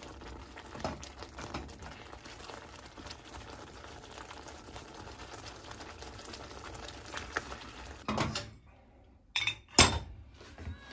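Thick tikka masala sauce bubbling and spitting in a steel pan, with a spatula scraping through it. Near the end the bubbling cuts off, and two sharp clatters follow, the second louder, as a ceramic plate knocks on the hob.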